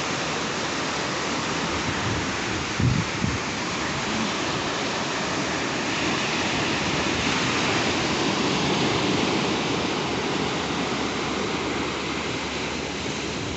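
Small waves washing steadily against a rocky shoreline, swelling a little in the middle, with a brief low thump about three seconds in.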